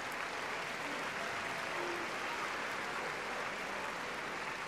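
Large arena audience applauding steadily.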